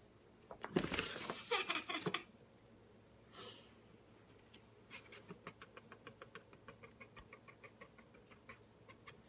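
Cardboard soda-can box scraping and crackling as a cat pushes its head into it: a louder scrape in the first couple of seconds, then a run of quick small clicks and scratches, about five a second, for the last few seconds.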